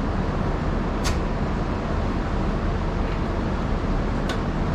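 Garden tractor's Kohler single-cylinder engine running steadily, with two sharp clicks, about a second in and near the end. It seems not to be pulling fuel through the carburettor's main jet, which the owner puts down to the carburettor not having been cleaned out.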